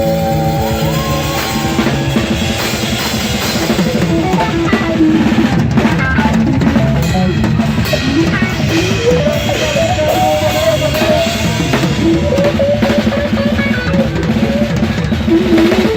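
Live band playing instrumental music: a drum kit with kick and snare keeps a steady beat under a wandering melodic lead line.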